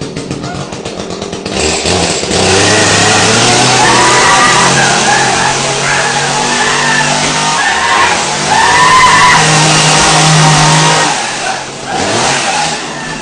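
Chainsaw engine running loud and revving up and down, coming in sharply about a second and a half in and easing off near the end.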